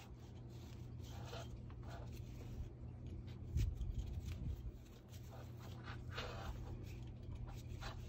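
Braided cord rubbing and sliding as a monkey's fist knot is pulled tight by hand, in scattered short rustles and scrapes, with a louder low bump about three and a half seconds in.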